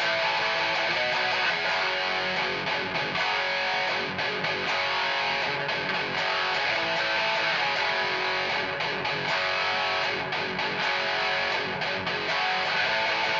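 Electric guitar with active EMG 81/85 pickups played through a Peavey 6505 Piranha amp and 1x8 cabinet: a continuous, distorted high-gain metal riff.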